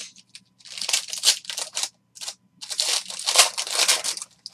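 A foil trading-card pack wrapper being torn open and crinkled in the hands, in two long rustling stretches.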